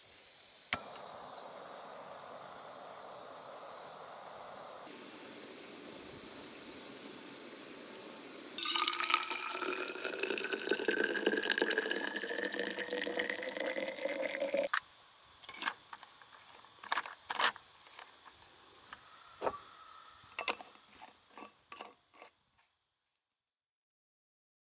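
Water running into a container. After a few seconds of steady flow, a louder stream rises steadily in pitch as the vessel fills and stops abruptly about fifteen seconds in. A series of short clinks and knocks follows.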